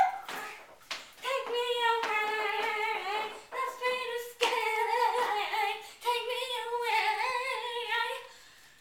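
A child singing a tune in a high voice, in several held phrases with short breaks.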